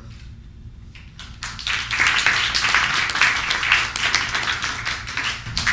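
Audience applauding, starting about a second in and stopping abruptly at the end.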